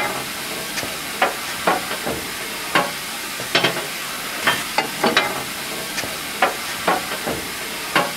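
A steel fire iron knocking and scraping against the grate and firedoor of a steam locomotive's firebox as the fire is raked, with sharp knocks coming irregularly about once or twice a second. Under it runs a steady hiss.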